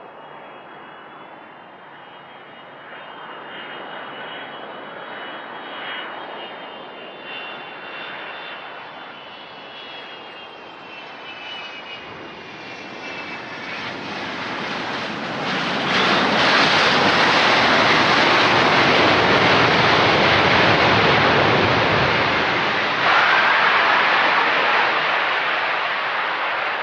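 Boeing 757-200 jet airliner coming in to land. The high whine of its twin turbofans grows steadily louder, then gives way to a loud rush of engine noise as it passes, just past the middle. Near the end comes a second surge with a short rising whine.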